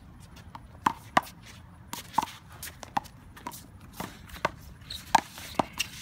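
Small rubber handball being slapped by bare hands and smacking off the concrete wall and court during a one-wall handball serve and rally: a string of sharp smacks, the loudest a pair about a second in and another just past five seconds.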